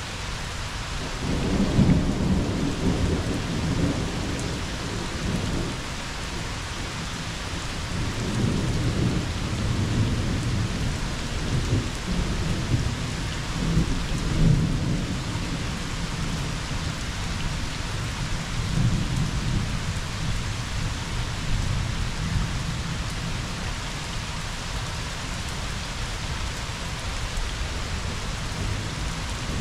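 Steady rain falling, with a long rolling rumble of thunder that starts about a second and a half in with a loud peak. It swells again several times and fades away in the last few seconds.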